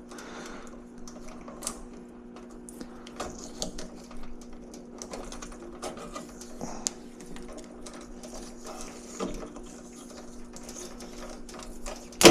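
Electrical tape being pulled off the roll and wrapped around wires, a run of scattered small clicks and crackles over a steady low hum, with a single sharp knock near the end.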